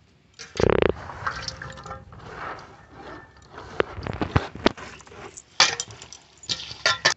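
Hands sloshing and splashing in water in an aluminium basin while chopped bamboo mushroom and greens are washed, with sharp clinks and knocks against the metal bowls. A short loud grating sound comes about half a second in.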